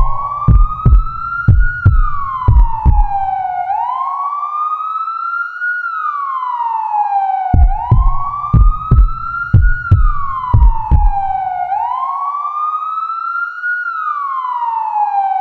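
Emergency alert alarm: a siren tone wailing up and down, about four seconds per rise and fall. Two runs of quick, heavy thumps, about two or three a second, come over it: one at the start and one about halfway through.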